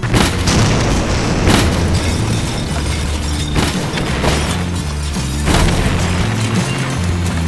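Building explosion: a sudden loud blast, then several more booms, over a steady low music drone.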